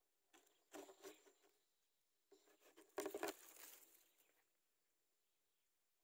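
Two short spells of dry rustling and scratching in a grass nest as hatchling chicks shift about, one about half a second in and a louder one from about two to four seconds in.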